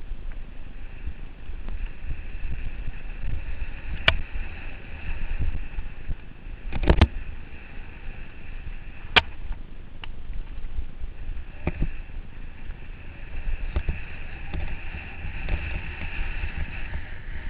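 Mountain bike rolling down a rough, rocky trail, picked up by a helmet-mounted GoPro: a steady low rumble broken by sharp knocks and rattles as the wheels hit rocks and roots, the loudest a double knock about seven seconds in.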